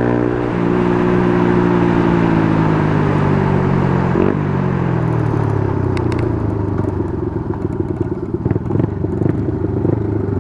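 Motorcycle engine running at a steady pitch, then falling in pitch from about four seconds in as the bike slows, settling into a rough, low rumble.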